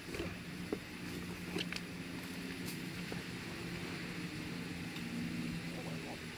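A steady low machine hum with a few faint scattered clicks over it.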